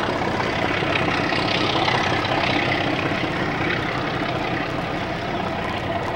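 A passenger train running away round a curve, its locomotive working and its wheels rumbling on the rails, the sound slowly fading as it draws off.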